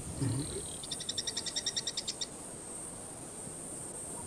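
Waterhole ambience: a steady high insect drone, a short low grunt just at the start, then a rapid trill of about a dozen high notes, about ten a second, from about one to two seconds in, likely a frog.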